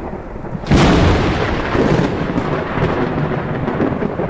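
Thunder sound effect: a sharp thunderclap under a second in, followed by a long rolling rumble.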